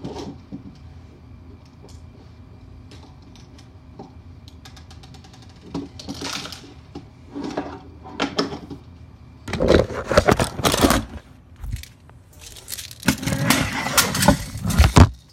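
An airsoft shotgun being loaded with BBs, heard as small plastic clicks and rattles. In the second half come two spells of louder rattling, rubbing and knocking as the fallen camera mount is handled and set back up.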